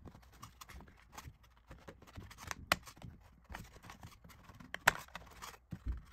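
An orange 3D-printed plastic doubler being worked into the opening of a printed lightweight-PLA fuselage by hand: light scrapes and small plastic clicks. The sharpest clicks come about two and a half and five seconds in, with a dull knock near the end.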